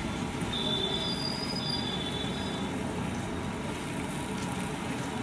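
Busy street traffic noise, a steady low rumble, with two thin high-pitched squeals in the first half.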